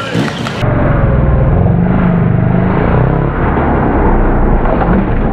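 Christini dirt bike engine revving hard, its pitch rising and falling as the bike claws up a steep rock ledge.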